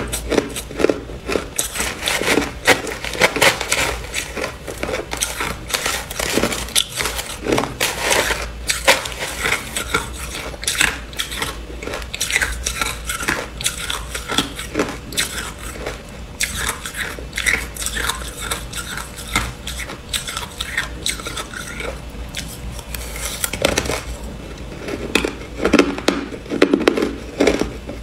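Crushed ice being eaten: a dense run of crackling crunches as ice is bitten and chewed, with a metal spoon scraping and scooping through ice in a plastic cup. The crunching is heaviest near the end.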